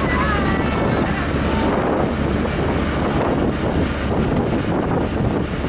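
Motor launch cruising at steady speed, its engine a constant low drone under wind buffeting the microphone.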